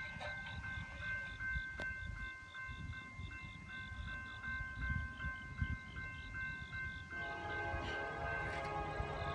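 Railroad crossing signal bell ringing steadily, a few strokes a second. About seven seconds in, the approaching Norfolk Southern freight locomotive's air horn starts sounding, one long chord for the crossing.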